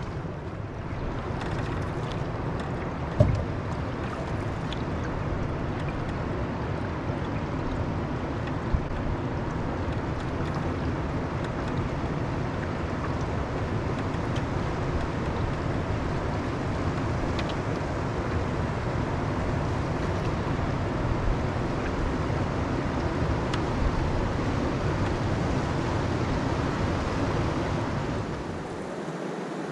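Steady wind rumble on the microphone over water rushing around a canoe, with a single sharp knock about three seconds in. The low rumble drops away near the end.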